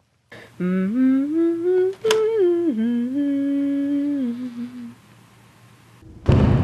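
A person humming a short tune in steps up and down, with a sharp click about two seconds in. Near the end a loud rush of noise starts.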